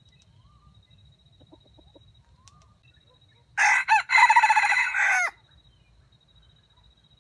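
A wild junglefowl rooster crowing once, a short crow of under two seconds about three and a half seconds in, with a brief break just after it begins.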